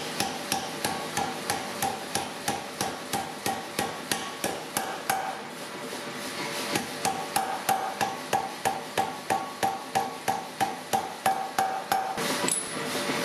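Power hammer drawing down hot steel tong reins over a set-down tool, striking rapidly at about four blows a second with a ringing tone on each blow. The blows ease off briefly a little under halfway through, then pick up again.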